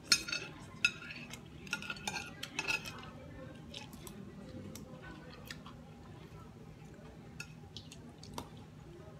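Metal spoon and fork clinking against a plate and a glass bowl, with several sharp clinks in the first three seconds, then chewing with only occasional small clicks of the utensils.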